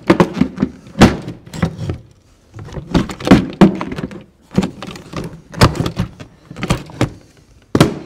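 Harley-Davidson touring hard saddlebag being closed and latched: a quick series of knocks and clacks from the lid and its clamp-down latch, coming in bunches, with one last sharp knock near the end.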